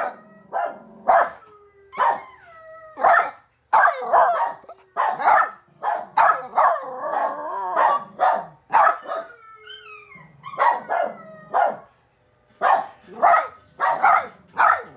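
Miniature Australian Shepherd puppy barking again and again in quick runs, with high, drawn-out howling whines that slide in pitch between the barks, and a short pause about twelve seconds in.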